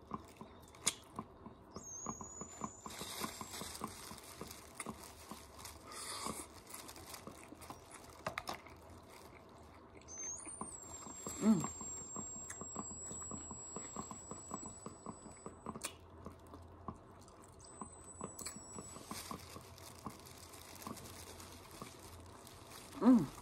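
Close-miked chewing and lip smacking as a tostada salad is eaten, with many small wet clicks and light crunches from the tortilla shell. A short vocal sound comes about eleven seconds in and again near the end.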